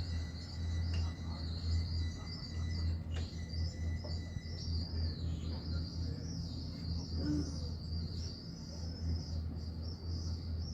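Steady high-pitched insect chorus over a low, pulsing hum.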